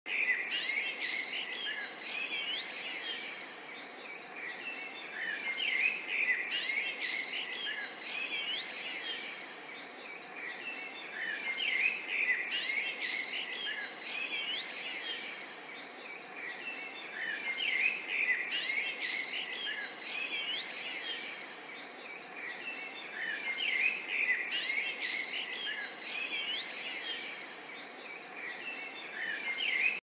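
Many small birds chirping and singing together: a dense, overlapping chorus of quick high chirps and short whistles that swells and fades in waves about every six seconds.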